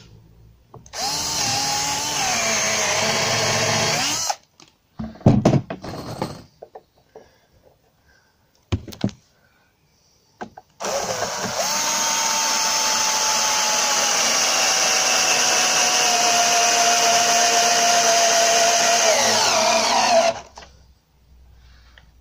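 Cordless drill-driver running under load in timber. A run of about three seconds boring the hole is followed by a few knocks. Then a run of about nine seconds drives a long wood screw through a tread block into the stair stringer, the motor's pitch falling slowly as the screw goes in and stopping near the end.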